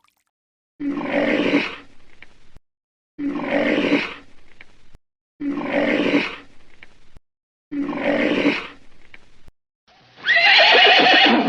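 Horse calls: the same short call, about two seconds long, played four times in a row with brief silences between, then a louder whinny falling in pitch near the end.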